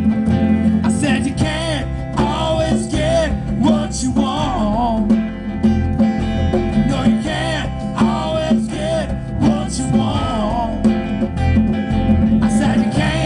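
A live band playing: strummed acoustic guitar over hand drums and bass, with a wavering lead melody line above.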